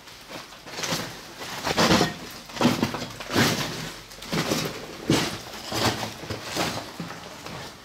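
Footsteps crunching over broken tiles and rubble on a concrete floor, about nine steps at a steady walking pace.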